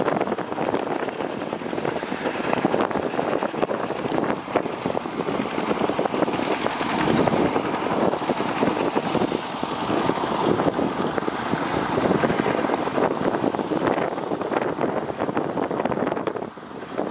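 Two-wheel walking tractor's single-cylinder diesel engine running under load as it drags a puddling rig through a flooded rice paddy, with water and mud churning and wind buffeting the microphone.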